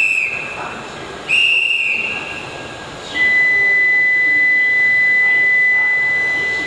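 Two short blasts on a station staff member's whistle, the signal that boarding is over. About three seconds in, a steady high electronic tone begins: the door-closing warning.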